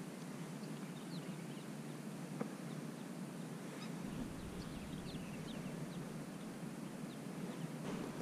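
Faint, scattered short bird calls over a steady background hiss, with a slight low rumble joining about halfway through.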